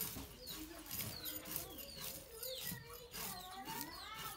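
Fish scales rasping off a poa fish as it is drawn against an upright boti blade, in quick repeated strokes, several a second. Birds chirp in the background, with short falling chirps and some curved calls near the end.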